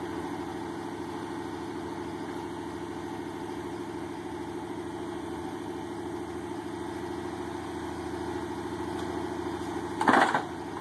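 A motor running steadily while the winch pulls the body off the Bronco frame, with a short loud noise about ten seconds in.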